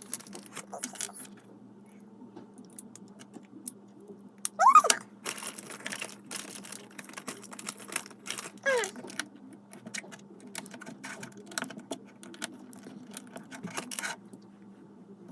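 Plastic Lego pieces clicking and rattling as they are handled and pressed together, in irregular small clicks, over a steady low hum.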